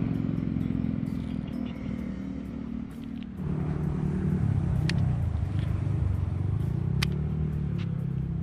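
An engine running steadily, its low hum shifting and wavering in pitch from about three seconds in, with two sharp clicks, about two seconds apart, partway through.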